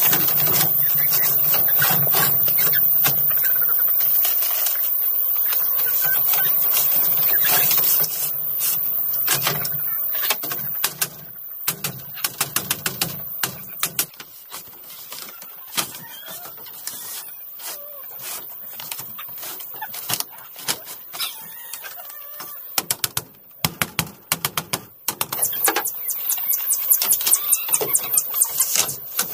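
Jungle chickens clucking and calling. Many sharp taps and clicks run through the second half, turning into a fast, even patter near the end.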